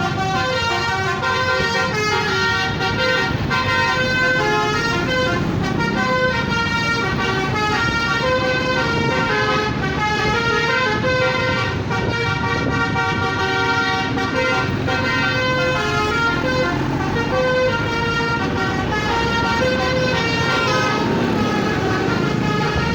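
Bus telolet horn playing a multi-note melody, several tones sounding at once and stepping from note to note, over a low rumble of engine and traffic.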